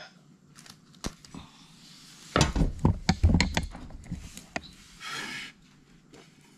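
Handling clunks and knocks: a quiet click about a second in, then a loud cluster of thumps and knocks between about two and four seconds in, followed by a short hiss near five seconds.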